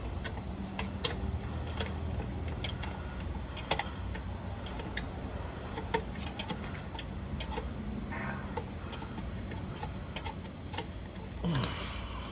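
Scattered light metallic clicks and taps, irregular in timing, over a steady low hum: a replacement starter being seated in the bell housing and its mounting bolts handled and fitted.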